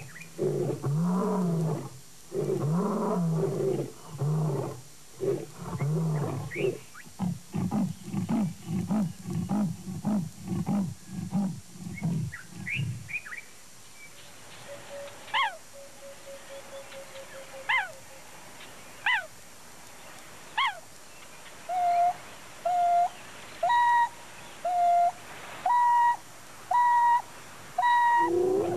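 A male lion's roaring bout: several long, deep moans, then a run of shorter grunts about two a second that trails off about 13 seconds in. After a pause come a few short, sharp falling calls. In the last seven seconds there is a series of steady hoots about once a second, the contact calls of African wild dogs.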